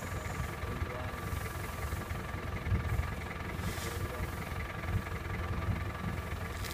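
Low, steady rumble of an idling vehicle engine, with a brief rustle about three and a half seconds in.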